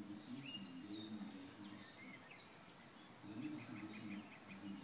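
Birds singing: scattered whistled and gliding notes in the first couple of seconds, then a rapid trill of repeated notes over the last second or so. A faint low hum runs underneath.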